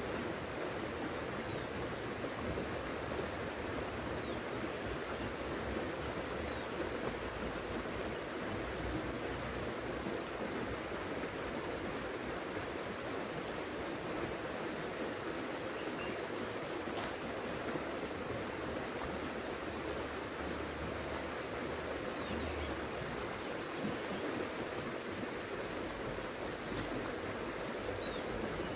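River water rushing steadily over stones. A few short, high whistles that fall in pitch come and go over it, mostly in the middle stretch.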